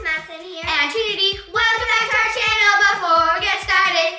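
A child's voice singing a song with long held notes over a steady backing beat.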